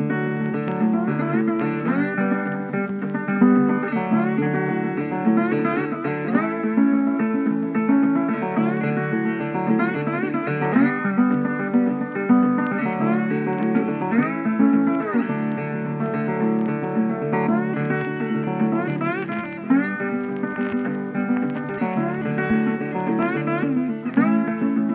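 Background music played on guitar, plucked and strummed, with notes sliding in pitch.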